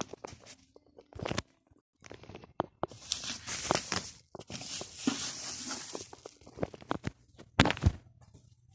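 Packaging being handled and torn open during an unboxing: rustling and tearing with scattered clicks and knocks, a longer stretch of rustling in the middle, and a loud pair of knocks near the end.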